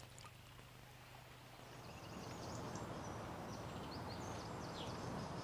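Faint outdoor background noise with a few faint bird chirps, growing slightly louder about two seconds in, over a low steady hum.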